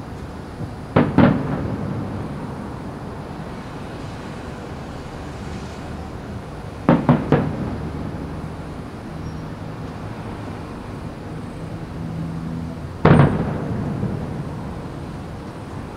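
Distant aerial firework shells bursting: a double bang about a second in, another pair around seven seconds, and a single loudest bang near the end. Each bang trails off in a long rolling echo.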